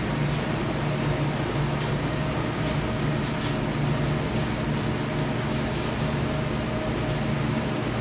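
Steady mechanical hum and whir of commercial kitchen machinery such as coolers and fans, with a low, even hum and a few faint ticks.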